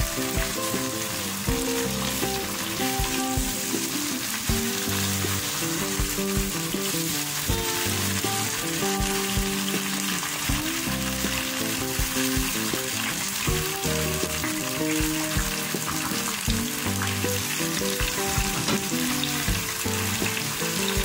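Vegetables sizzling steadily in a hot frying pan as they are stir-fried, tossed with a wooden spatula that scrapes and knocks against the pan now and then.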